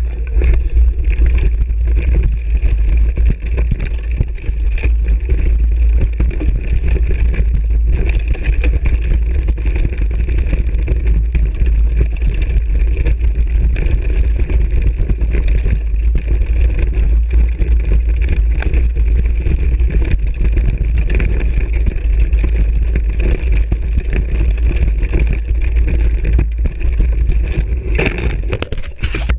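Heavy wind buffeting and trail rumble from a mountain bike descending a gravel trail, picked up by a bike- or body-mounted GoPro: a steady loud low rumble with tyre and frame rattle. Near the end come a few sharp knocks as the bike crashes.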